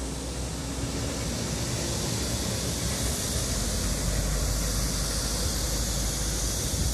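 Wind rumbling on the microphone over a steady rush of road traffic, with no distinct events.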